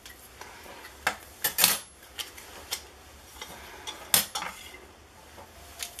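Plastic and metal parts of a cabinet hardware jig clacking as they are handled and set down on a hard tiled floor: a few scattered knocks, the loudest about four seconds in.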